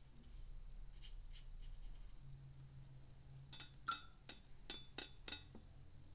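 A paintbrush clinking against the side of a glass rinse jar as it is swished clean: six quick ringing clinks about a third of a second apart.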